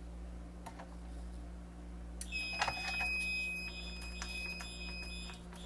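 Fire alarm horn sounding in march time, a Wheelock MT4 pulsing a little under twice a second, starting about two seconds in with a couple of clicks. Over the first three seconds of it a steady high electronic tone sounds as well.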